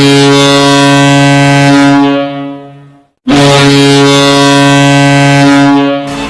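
HC Vítkovice Ridera's ice hockey goal horn sounding two long, loud, deep blasts. The first holds about two seconds and then fades out. After a short gap the second holds nearly three seconds and stops abruptly.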